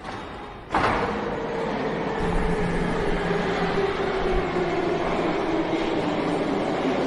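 Subway train sound: a sudden rush of rail noise about a second in, then a steady running rumble with a whine that slowly falls in pitch.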